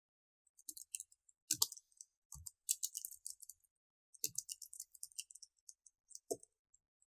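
Typing on a computer keyboard: quick runs of light key clicks, with a short pause about halfway through.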